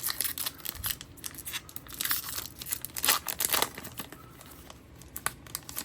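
A foil trading-card pack wrapper being torn open and crinkled by hand, in irregular crackling rips, loudest about two and three seconds in.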